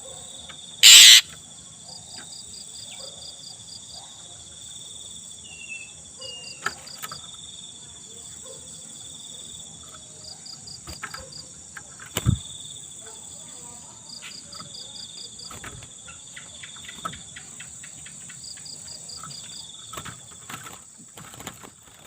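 Night insects, crickets among them, trilling steadily, with a pulsed chirp that comes in short runs every couple of seconds. A loud, brief, noisy burst comes about a second in, and a sharp knock near the middle.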